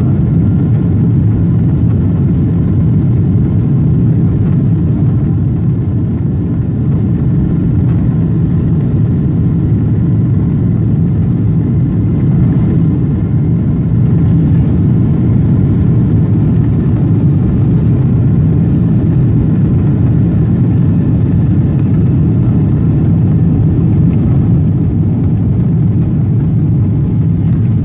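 Jet airliner's engines at takeoff thrust heard from inside the cabin during the takeoff roll: a loud, steady, deep rumble with faint steady engine tones above it.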